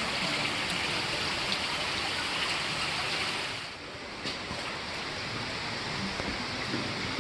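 Steady rushing water of a mountain gorge stream, dipping slightly in level a little before the middle.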